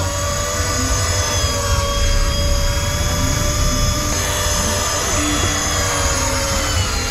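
Steady machine drone on a fishing boat at sea: a low rumble with several steady whining tones above it that dip slightly in pitch a few times.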